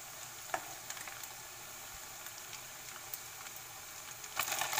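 Boiled noodles deep-frying in hot oil on high flame: a steady sizzle with a few small pops, growing louder near the end.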